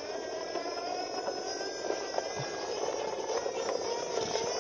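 Plastic toy truck pushed along by hand, giving a steady whirring buzz that slowly rises in pitch.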